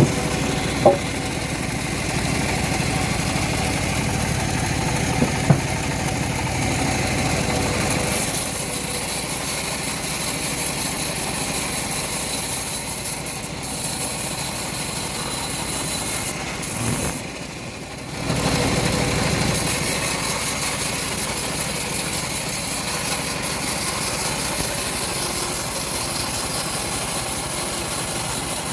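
Engine of a homemade bandsaw mill running steadily. Two sharp knocks come in the first six seconds, and the sound drops briefly about two-thirds of the way through.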